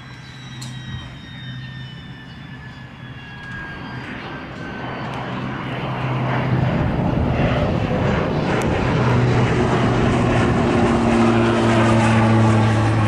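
Pilatus PC-12's single PT6A turboprop at takeoff power as the aircraft lifts off and climbs out, a steady propeller drone that grows much louder about five seconds in and stays loud.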